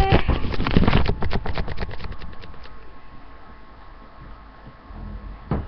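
Rustling and clicking handling noise as a T-shirt is held and moved close to the microphone, loud at first and fading out over about two and a half seconds, followed by a single thump near the end.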